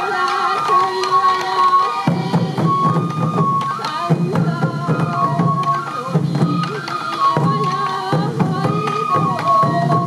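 Traditional sansa odori festival music: a bamboo flute playing a stepwise melody over the beat of dancers' waist-slung taiko drums. The drumming is light for the first two seconds, then comes back in full.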